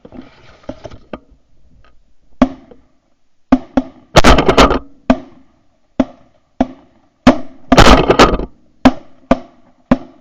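A volley of shotgun blasts from several goose hunters firing together at incoming birds: about a dozen sharp shots starting about two seconds in, some overlapping in quick clusters.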